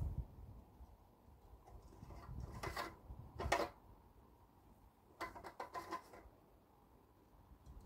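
Faint clicks and rubbing from hands working the controls of a stationary petrol engine that is not yet running: two short bursts about three seconds in and a cluster of them just past halfway.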